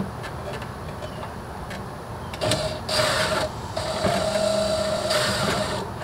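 Cordless drill driving a small screw into a mini-fridge's inner side wall: a short burst of motor whine about two and a half seconds in, then a longer steady run from about four seconds in until just before the end.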